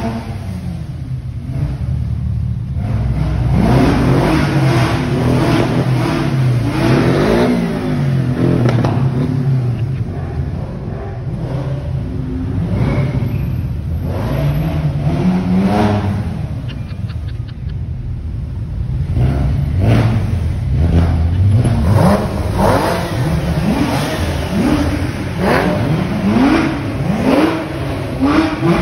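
A procession of Porsche sports cars driving past one after another at low speed, engines revving in repeated short rising blips.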